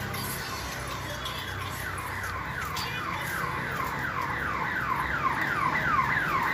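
Car alarm sounding: a fast repeating run of falling electronic sweeps, about three a second, starting about a second in and growing louder, over a low traffic hum.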